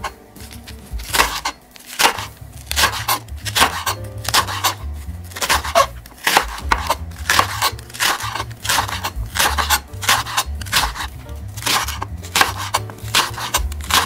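Chef's knife slicing through green onion onto a wooden cutting board: a steady run of sharp knocks, about two a second, over soft background music.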